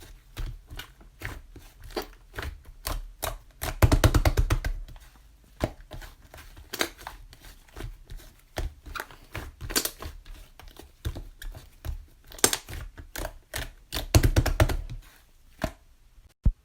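Irregular sharp taps and clicks, with two runs of rapid clicking, one about four seconds in and one near the end.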